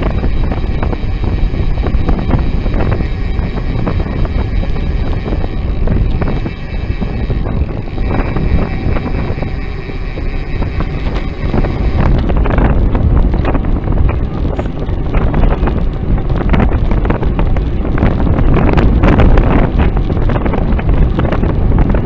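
Wind buffeting the microphone of a bicycle-mounted camera while riding, with a steady low road rumble. About halfway through the sound changes abruptly and frequent sharp knocks and rattles join the rumble.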